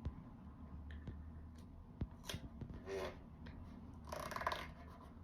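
Sticker seal labels being handled and applied by hand: light clicks and short rasping, peeling sounds, the longest and loudest about four seconds in.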